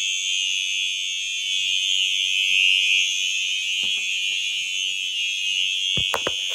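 Building fire alarm sounding, a steady high-pitched electronic tone with a fainter, higher tone above it. A few sharp clicks or knocks come near the end.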